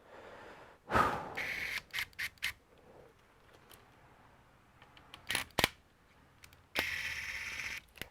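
Sharp clicks and handling noise from laptop parts and small tools being worked during reassembly, with a steady rasping noise lasting about a second near the end.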